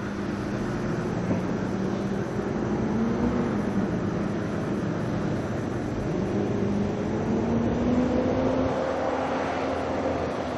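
A motor engine running steadily, its pitch drifting slowly up and down.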